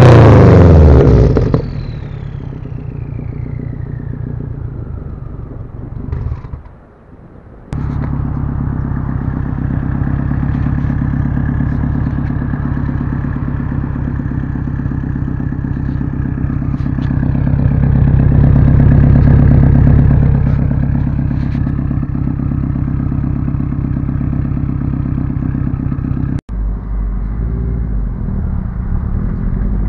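2012 Subaru WRX's turbocharged flat-four through a catless downpipe and Tomei titanium catback exhaust: the launch-control rev limiter bouncing at about 4,000 rpm stops a second or so in and a high whine falls away as the engine drops toward idle. Then the exhaust idles steadily at the tailpipe, swelling a little about two-thirds of the way through; near the end, heard from inside the cabin, the idle steadies and the revs start to climb.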